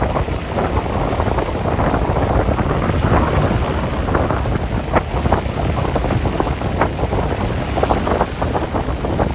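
Strong wind buffeting the microphone: a steady, loud low rumble of wind noise with brief sharp crackles scattered through it.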